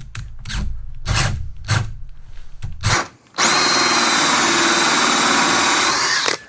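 Power drill driving a 2-inch hole saw into cedar: a few short bursts with a low rumble of the cut, then a steady high whine for about three seconds that stops suddenly near the end.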